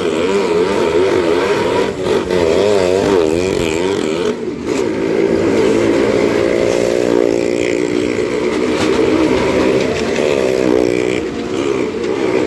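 Engines of two small hatchback cars running at high revs as they circle the wall of a well-of-death drum, the pitch rising and falling in quick waves. There is a brief dip about four and a half seconds in, after which the engines hold a steadier high note.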